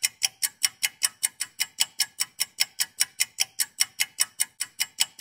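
Clock ticking sound effect: an even run of sharp ticks at about five a second, marking a skip forward in time.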